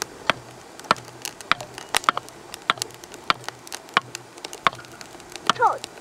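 Wood fire crackling inside a Lixada folding wood-burning stove: sharp, irregular pops, about two a second. Near the end come a few short falling tones.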